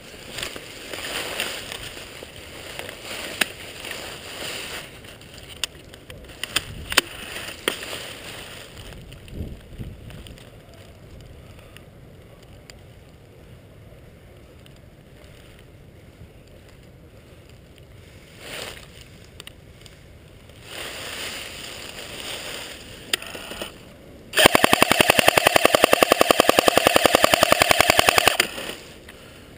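Airsoft rifle firing a long full-auto burst of about four seconds near the end, a fast, even rattle of shots and the loudest sound here. Earlier there is irregular rustling with a few sharp clicks.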